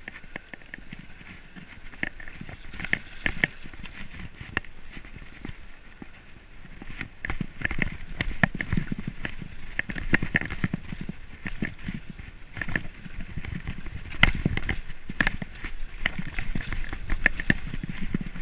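Mountain bike riding a dirt singletrack: tyres rolling over dirt and rocks, with the bike rattling and clicking sharply over bumps. It gets busier and louder from about seven seconds in.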